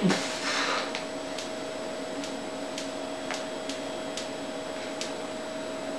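Quiet room tone: a steady, high electrical-sounding hum with a few faint, irregularly spaced ticks. A short breathy noise comes in the first second.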